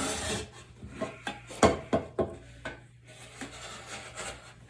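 Swiss Tech Wurdig folding knife's blade cutting into a stiff rolled-cardboard liquor tube: a rasping scrape, with a few sharp cracks near the middle as the cardboard gives.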